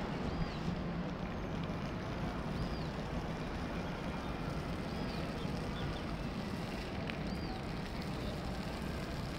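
Steady city ambience: a constant low rumble of distant traffic, with a faint short high chirp recurring about every two seconds.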